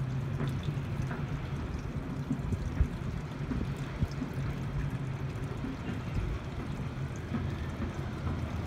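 Steady outdoor background noise of low rumble and faint hum with a water-like wash. Two short soft knocks come about three and four seconds in.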